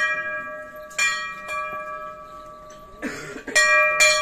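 A hanging brass temple bell rung by hand, struck about five times at uneven intervals, each strike ringing on with the same clear tone.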